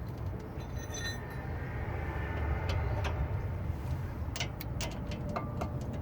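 Metal tools and brake parts clinking and clicking a few times, clustered from about four and a half seconds in, over a steady low rumble.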